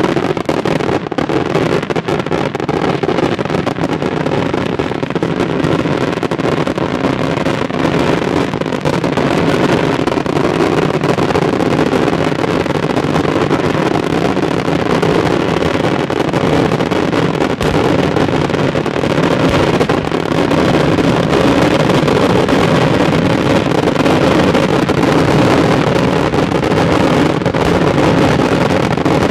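A dense, unbroken barrage of daytime firework bangs and crackles merging into one continuous roar, growing a little louder about two-thirds of the way through.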